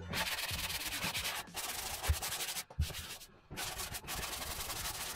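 A drywall patch being sanded by hand with rapid back-and-forth strokes, making a scratchy hiss that stops briefly a few times.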